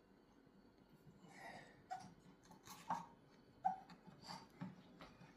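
Faint handling noise from work inside a cuckoo clock: a few light clicks and knocks of small parts being worked loose, with soft breath-like hisses between them.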